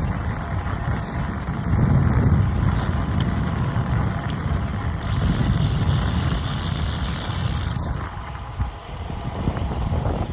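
Wind buffeting the microphone during a bicycle ride: a steady, gusting low rumble, with the hiss of moving air and tyres on the road.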